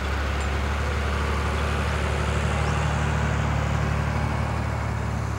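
Tractor engine and a Kuhn FC 313 disc mower cutting grass: a steady low drone with a hiss from the spinning cutter discs and grass.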